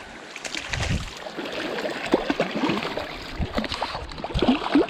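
Small mountain creek water gurgling and splashing close to the microphone, with a few low thumps.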